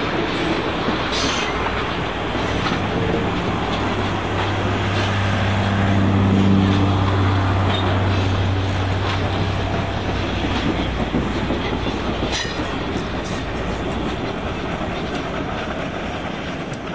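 HO scale model freight train's cars rolling past on the track: a steady rattle of wheels on rail with a few sharp clicks over the rail joints. It fades gradually near the end.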